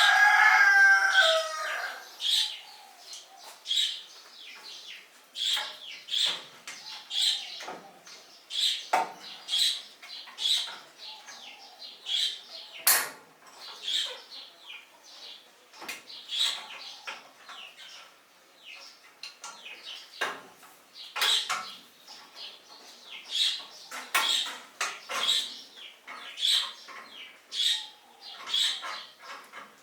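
Chickens in a coop: a rooster crows at the start, then a long run of short, sharp sounds about a second apart, a few of them harder knocks.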